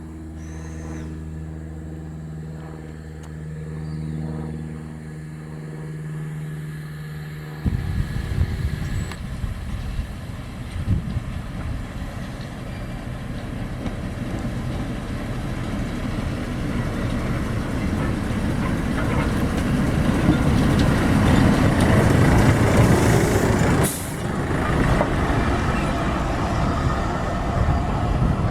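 Train on a railway line: a locomotive engine hums steadily, then about eight seconds in a louder rumbling sets in and builds, as of the train running along the track.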